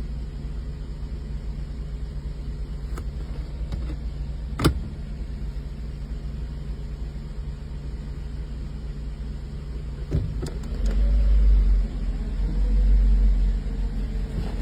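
1984 Mercedes 380SL's V8 engine idling steadily, its rough idle cured by a replacement engine control unit. There is a sharp click about four and a half seconds in and another near ten seconds, then two loud low rumbling surges near the end.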